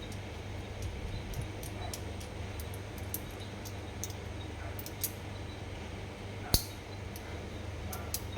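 Light, scattered clicks and taps of small reel parts and tools being handled as a Daiwa Steez SV TW baitcasting reel is taken apart, with one sharper click about six and a half seconds in, over a steady low hum.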